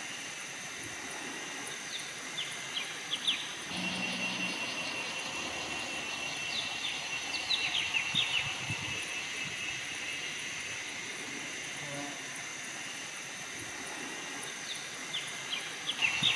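Forest ambience: a steady, high-pitched insect drone, with clusters of short, falling bird calls a few seconds in, around the middle and again near the end.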